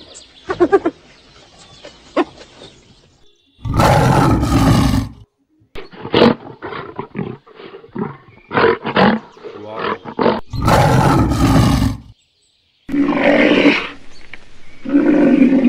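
Lion roaring: several loud, deep roars with a run of short grunts between them. A few faint short calls come first.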